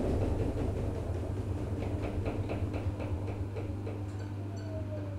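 Front-loading washing machine winding down after its 1400 RPM spin: a steady low hum fading slowly, a run of quick even ticks in the middle, and a falling motor whine near the end.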